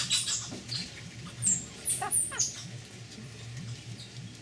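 White-faced capuchin monkeys squealing as they fight over a lime: a string of short, high-pitched squeaks, several falling in pitch, bunched between about one and a half and two and a half seconds in.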